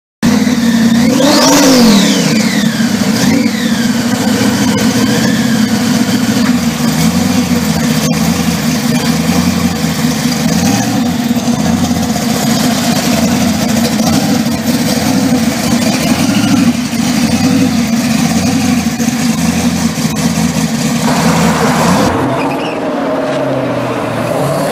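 Supercharged 572 big-block Chevrolet V8 in a 1969 Camaro SS blipped three times in the first few seconds, each rev rising and falling, then idling with an uneven, pulsing beat. A few seconds before the end the sound drops a little and turns duller.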